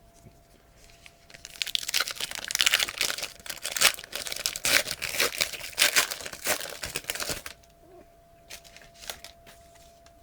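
Wrapper of a 2012-13 Panini Past & Present trading-card pack crinkling as it is torn open and handled, for about six seconds, followed by a few light clicks near the end.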